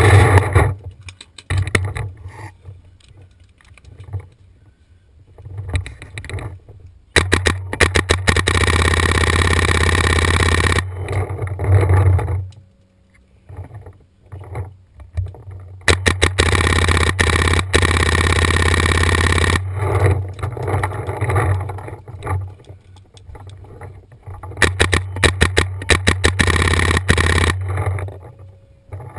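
Paintball marker firing rapid strings of shots in three bursts, each about three to four seconds long, with scattered single clicks between.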